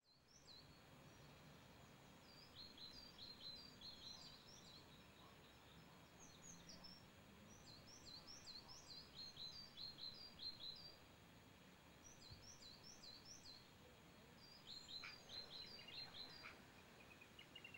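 Small birds singing faintly: runs of quick, high chirps repeated in phrases with short pauses between them, over a soft background hiss.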